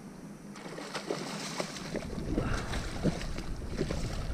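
Splashing water as a hooked traíra thrashes at the surface on the line, with scattered sharp splashes getting louder toward the end.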